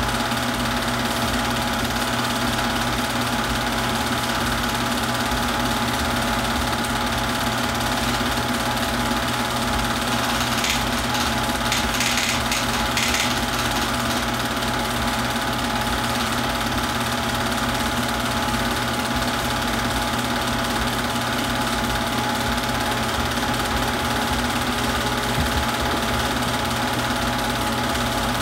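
Super 8 film projector running steadily: a constant mechanical motor hum and whirr.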